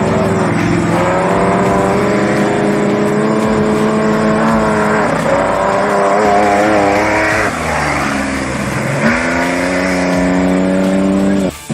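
Off-road race vehicle engine running loud and revving, its pitch climbing about a second in and again late on.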